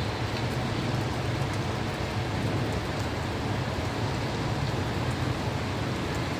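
Steady rain: an even hiss with a constant low rumble beneath it and faint scattered drop ticks.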